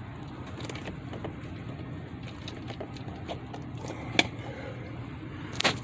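Light clicks and knocks of the plastic glove box being handled and pulled at its sides, with a sharper click about four seconds in and a couple more near the end, over a steady low hum.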